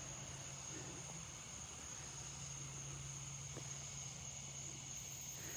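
Faint outdoor ambience: insects trilling steadily in one continuous high-pitched tone, with a low steady hum underneath.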